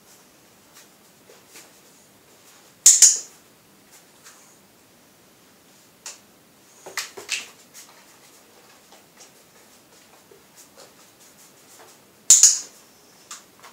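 A border collie's claws tick lightly on a tiled floor as it moves at heel. Two sharp double clicks, about nine seconds apart, are the loudest sounds.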